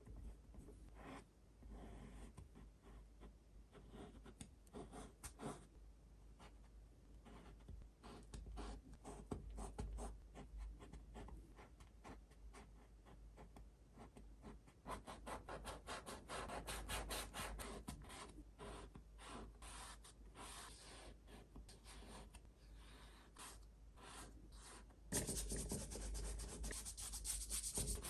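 Paintbrush working oil paint: many short scratchy strokes and dabs, coming faster for a stretch in the middle, then turning into louder, continuous scrubbing near the end.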